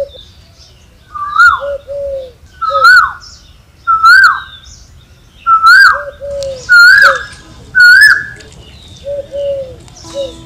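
A bird calling loudly and repeatedly, about six calls spaced a little over a second apart, each call a short swooping note, with softer lower notes in between. Music comes in near the end.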